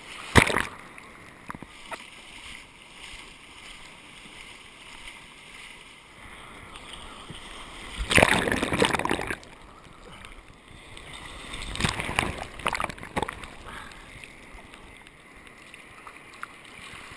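Surf washing over a camera held at the water's surface, waves and foam splashing across it. There are loud bursts of splashing about half a second in, at about eight seconds lasting over a second, and again around twelve to thirteen seconds, with a low rush of water between.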